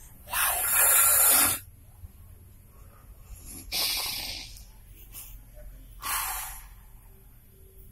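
A person making mock snoring sounds: three hissing, breathy snores a couple of seconds apart, the first the loudest and longest.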